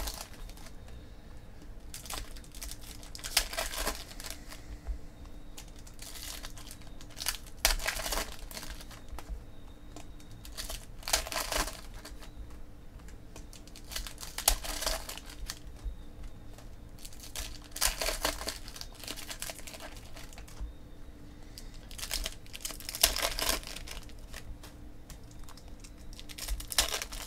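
Foil wrappers of Panini Prizm football card packs crinkling and tearing as packs are opened, in short bursts every three to four seconds, with quieter handling of the cards between.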